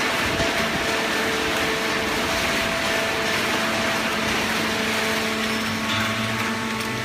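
A hydraulic baler running: a steady rushing machine noise with several steady hum tones, and a deeper hum that comes in about six seconds in.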